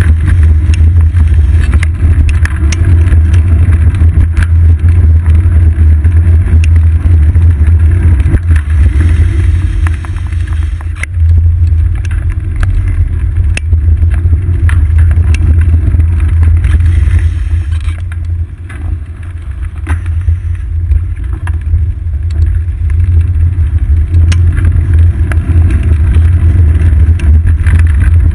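Wind buffeting and ride rumble on a seat-post-mounted GoPro Hero 2 as the bicycle rolls along, a loud, steady low rumble that eases briefly twice.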